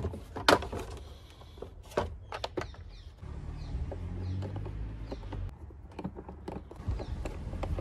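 Sharp plastic clicks and knocks as the Audi A5's air filter housing is unclipped and its lid handled, with a low rumble in the middle.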